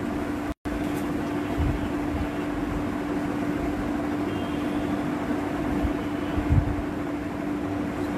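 A steady mechanical hum with a constant low drone, like room machinery running, broken by a split-second dropout about half a second in and a couple of soft low thumps.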